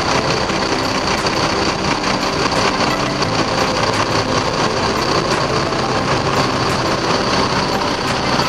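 Diesel bus engine idling steadily, with a constant mechanical hum and no change in speed.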